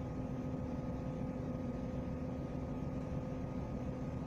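Steady running noise inside a moving diesel passenger train: low wheel-and-track noise with a constant engine hum.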